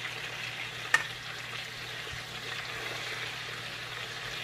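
Bananas frying in shallow oil in a wok, a steady sizzle, with one sharp click about a second in.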